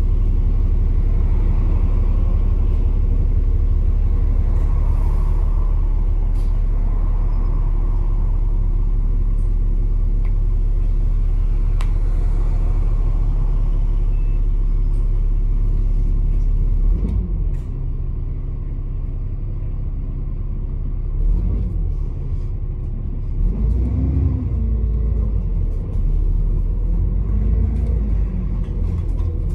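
Double-decker bus engine heard from inside the top deck: a steady low idling drone while the bus stands or creeps in queuing traffic. About two-thirds of the way through, the engine pitch rises and falls several times as the bus pulls forward.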